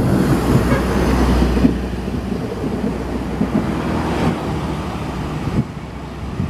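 Road traffic passing on a highway, a heavy rumble loudest in the first couple of seconds and then easing off.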